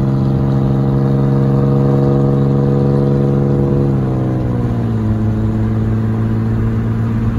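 Ford Explorer Sport Trac with a Magnaflow exhaust droning steadily at highway cruise, heard from inside a car following close behind. Its pitch drops about four seconds in as the engine eases off.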